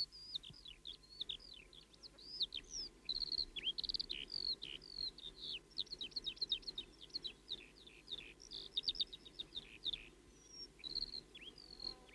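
Small birds chirping and twittering: a busy, continuous run of short quick notes and downward-sweeping calls, fairly faint.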